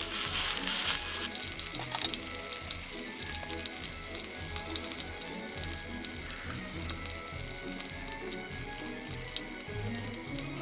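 Food sizzling in a frying pan: loud for about the first second, then dropping to a softer, steady sizzle with small crackles, under background music.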